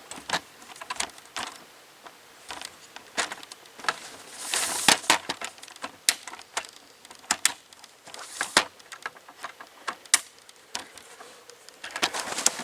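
Footsteps crunching on icy, frozen snow: an uneven run of crisp crunches as someone walks.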